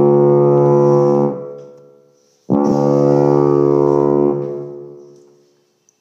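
A ship's horn giving two deep, steady blasts, the first ending just over a second in and the second lasting nearly two seconds. Each blast dies away slowly.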